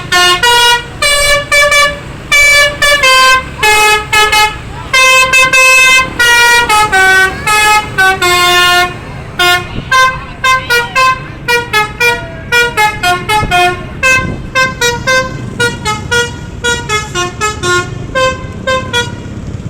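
Bus basuri musical horn playing a tune: a long run of loud pitched horn notes stepping up and down in pitch. About halfway through the notes turn shorter, quicker and a little quieter, over a low rumble.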